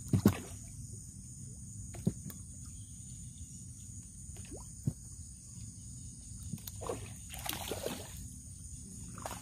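Hand line thrown and hauled in over shallow water: a sharp splash as it goes in at the start, a couple of single knocks, then a stretch of rough splashing a little after the middle as a hooked sardine is pulled up through the surface.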